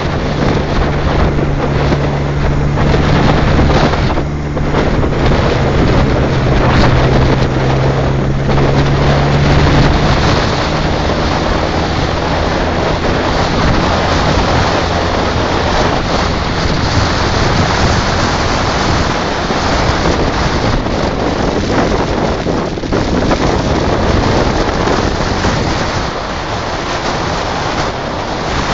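Yamaha XJ750's four-cylinder engine running steadily as the motorcycle rides along, under heavy wind rush on the microphone. The engine's steady hum is clearest for the first ten seconds or so, then the wind noise covers it.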